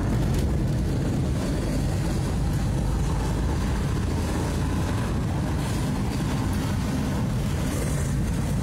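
Car driving on a wet street, heard from inside the cabin: a steady low rumble of engine and tyres with a hiss of water and rain.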